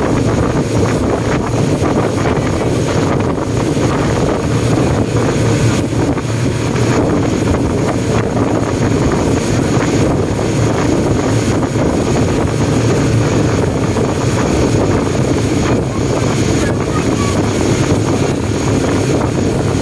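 Speedboat under way at speed: a steady engine drone mixed with rushing water from the hull and wake, and wind buffeting the microphone.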